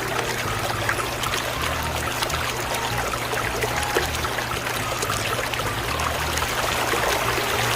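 Steady trickling, splashing water noise with many small crackly ticks.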